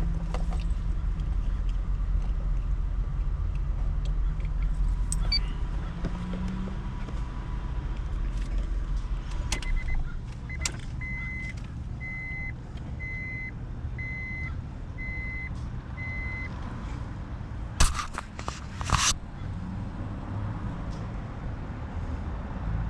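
The 2003 Acura TL's 3.2-litre V6 running at idle, its cylinder 6 misfire just repaired. Midway there is a string of about six evenly spaced electronic beeps, and near the end a few sharp clunks.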